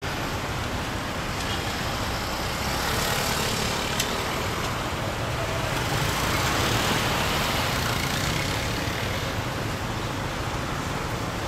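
Road traffic noise at a busy junction: a steady rush of passing cars and vans, with motorcycle engines idling close by. A single sharp click about four seconds in.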